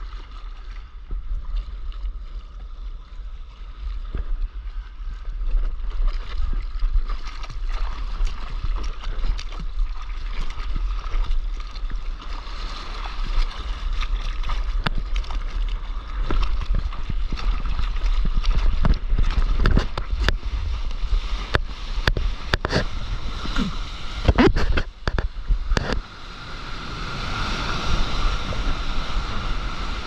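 Sea water sloshing and splashing against an action camera at the surface, with many sharp splash hits through the middle. Near the end comes a steady hiss of breaking whitewater foam rushing around a surfboard.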